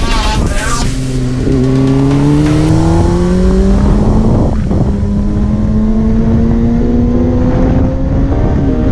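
2007 Honda CBR600RR inline-four engine accelerating hard under load, its pitch climbing steadily. There is a short break about four and a half seconds in, and the pitch drops near the end as it shifts up.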